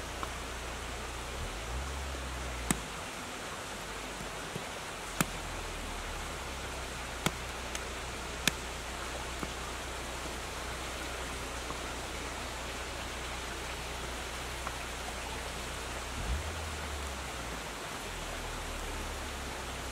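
Steady rushing of a river, with about half a dozen sharp knocks of a knife striking a wooden cutting board in the first half.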